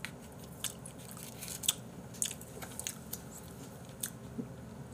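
A person chewing food close to the microphone, with a handful of short, wet mouth clicks and smacks spread through.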